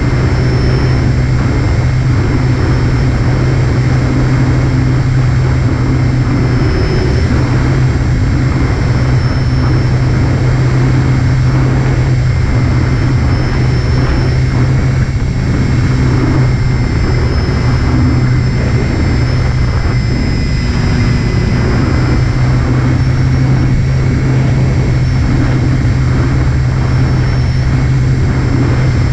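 RC FT Spitfire foamboard plane in flight, heard from a camera inside the fuselage: the electric motor and propeller run steadily, with a strong low drone and a thin high whine that drifts a little in pitch as the throttle changes, over constant rushing airflow.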